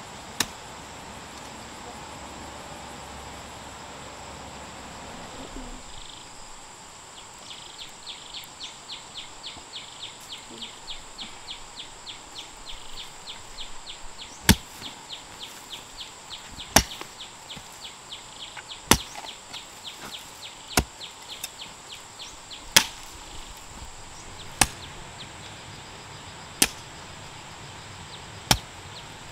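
Hoe blade chopping into clumpy garden soil: one sharp strike near the start, then a steady series of strikes about every two seconds in the second half. Before the strikes resume, a fast run of faint, high insect chirps sounds for several seconds.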